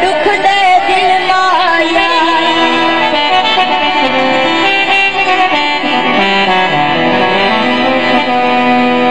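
Live South Asian folk stage music led by a harmonium. A sung line bends and ornaments the melody in the first couple of seconds, then the harmonium carries on with steady held notes.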